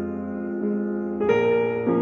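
Slow solo piano music, with held notes and a new chord struck a little over a second in.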